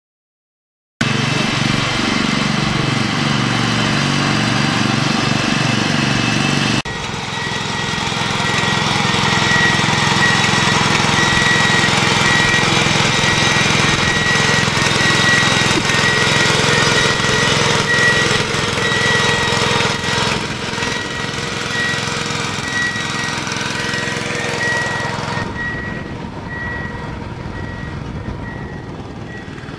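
Small petrol engine of a Barber walk-behind beach-cleaning machine running steadily, starting about a second in. The sound changes abruptly about seven seconds in, and from then a steady high whine runs over the engine.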